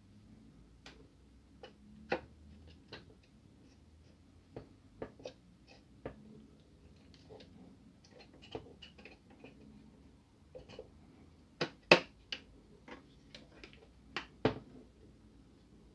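Irregular light clicks and knocks of plastic parts as a Kyocera imaging (drum) unit and its OPC drum are handled and fitted by hand. A few sharper clicks come near the end.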